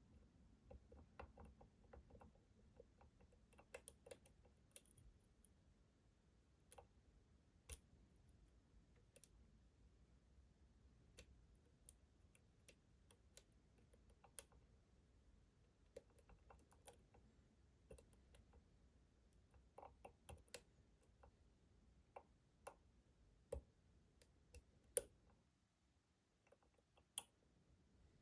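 Faint, irregular small metallic clicks and ticks of a lock pick and tension wrench working the pins inside a Schlage Primus Everest lock cylinder, with a few sharper clicks here and there.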